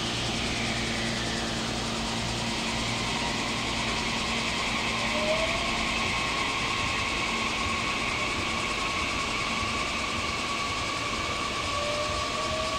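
Meitetsu electric train running, a steady rumble with a motor whine that slowly rises in pitch as the train picks up speed.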